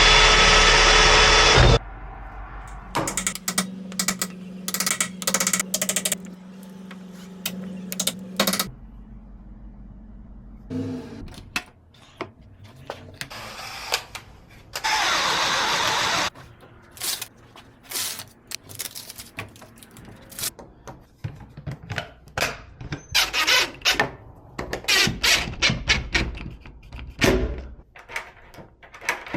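Locksmith installation work on a door: a power drill runs in short bursts, about two seconds at the start and again around the middle, between many sharp clicks and knocks of hardware being handled and fitted.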